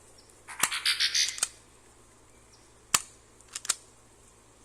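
Cyma P.698 spring airsoft pistol being fired: a short rattling clatter about half a second in, then a sharp snap of a shot about three seconds in, followed by two quick smaller clicks.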